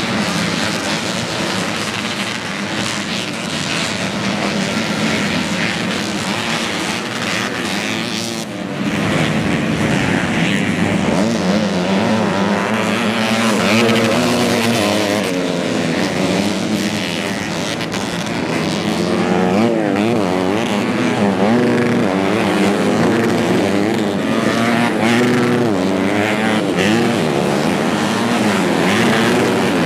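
Modified 110cc underbone racing motorcycle engines revving hard, their pitch rising and falling again and again as the bikes accelerate and back off. The sound dips briefly about eight seconds in, then comes back louder, with the revving rising and falling more often.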